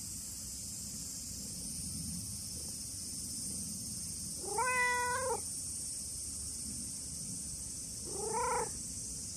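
Brown-tabby-and-white cat meowing twice: a longer meow about halfway through, then a shorter one near the end.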